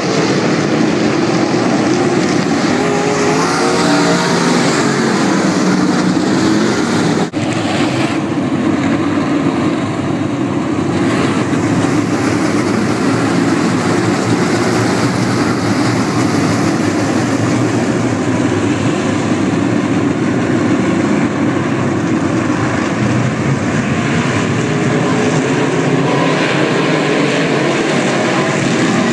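A field of UMP dirt modified race cars, with small-block V8 engines, running hard around a dirt oval. Their engines blend into a loud, steady drone, rising and falling in pitch as cars pass, with a brief drop in the sound about seven seconds in.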